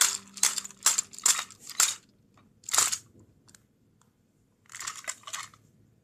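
Plastic toy trains being handled and set down: a quick run of sharp plastic clicks and knocks over the first two seconds, one more click a little before halfway, and a short scraping rustle near the end.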